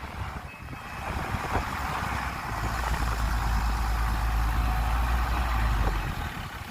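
Heavy diesel engine of earthmoving machinery working, growing louder with a deep low hum and then easing off about six seconds in.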